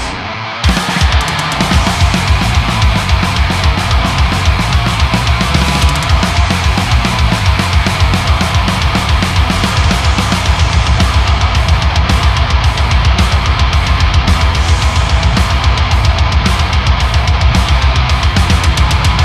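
Heavy metal riff on a Solar V1.7 Canibalismo electric guitar through a modelled Boss HM-2 'Swedish chainsaw' distortion, a thick, buzzing saturated tone, over a drum kit. The kick drum strokes grow denser and more regular about halfway through.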